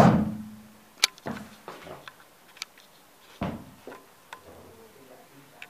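A sharp knock that rings briefly, then scattered light clicks and one heavier thump about three and a half seconds in, in a small tiled bathroom: footsteps and handling noise while walking through.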